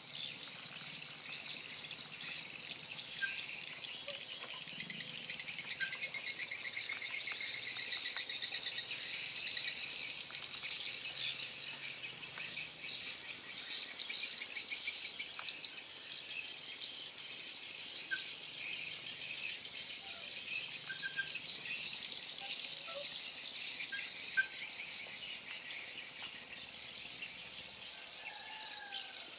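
A steady chorus of insects chirring, a fast high-pitched pulsing trill that runs without a break, with a few short, faint bird chirps over it.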